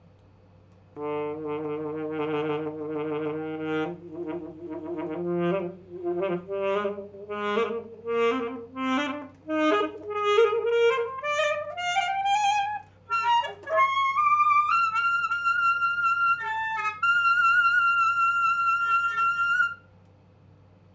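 Alto saxophone playing unaccompanied: a few seconds of low notes, then a run of short notes climbing steadily higher into the instrument's top register, ending on a long held high note that cuts off about a second before the end.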